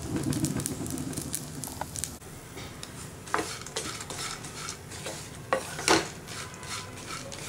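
A wooden spatula stirring pumpkin and watermelon seeds as they roast in ghee in a nonstick pan: the seeds rattle and scrape over a light sizzle. A few sharper knocks of the spatula against the pan come in the second half, the loudest about six seconds in.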